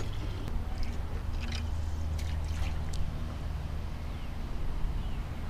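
Water trickling and lapping around a kayak hull, with a few light knocks in the first half and a steady low rumble underneath.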